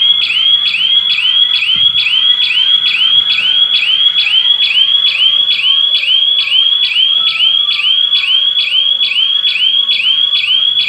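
Electronic alarm siren of a homemade GSM burglar alarm sounding without a break: a fast, piercing warble of quick rising whoops, about three a second, signalling that the system has detected a security breach.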